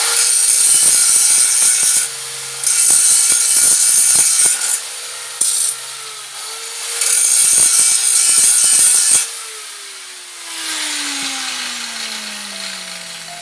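Handheld electric angle grinder grinding metal in several long, loud passes with short easings between. About nine seconds in it is switched off and its pitch falls steadily as the disc spins down.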